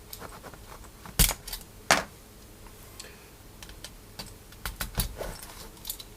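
Sharp plastic clicks and taps of Cherry keyboard switches and keycaps being handled and pushed into a keyboard plate. Two loud clicks come a little over a second in, then a run of lighter clicks near the end.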